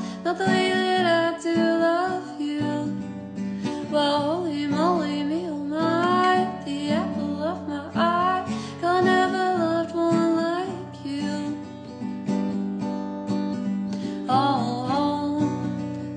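A woman singing, accompanied on acoustic guitar, her voice wavering in pitch on held notes. The voice pauses for a few seconds past the middle, leaving the guitar alone, then comes back near the end.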